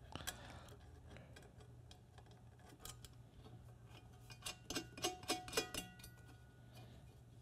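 Small metal mounting hardware clicking and clinking as bolts, washers and nuts are fitted through a metal side plate on the press frame: a few scattered clicks, then a quick cluster of sharp clinks that ring briefly about two-thirds of the way through, over a faint low hum.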